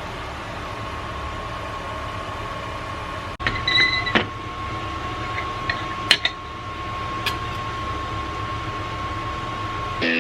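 A steady machine hum, joined a few seconds in by a thin, steady whine that keeps on until near the end, with a few light clicks and clinks.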